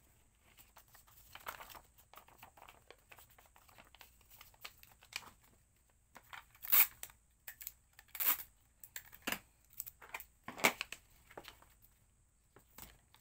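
Packaging material being handled: irregular crinkling and tearing with scattered sharp taps, the loudest about 7 and 11 seconds in.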